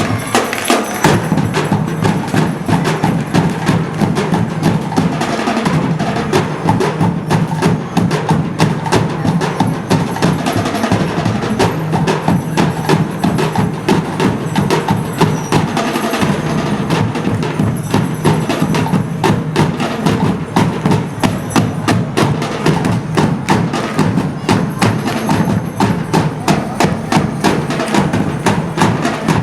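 Percussion music with a fast, steady beat of many wooden and drum strikes, playing without a break.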